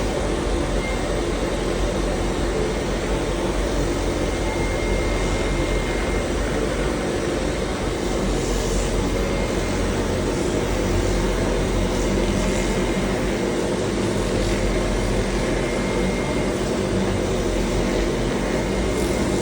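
Steady mechanical drone from a running machine, even in level throughout, with faint steady tones over a broad noise.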